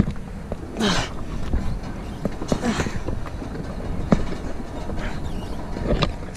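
Nissan 240SX being pushed by hand with its engine off, rolling slowly over the ground with irregular clunks and knocks over a low rumble.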